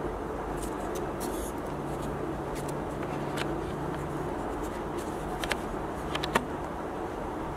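Light scraping and handling with a steady low hum under it, and a few sharp small clicks about five and a half and six seconds in.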